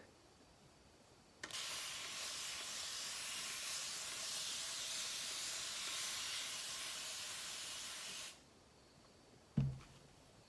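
Spray bottle of water spraying a steady hiss of mist for about seven seconds, starting about a second and a half in. A short knock comes near the end.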